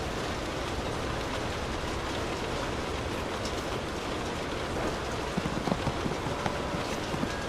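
Light rain falling on a car, heard from inside the cabin: a steady patter. From about two-thirds of the way in, a run of louder, sharper drops stands out.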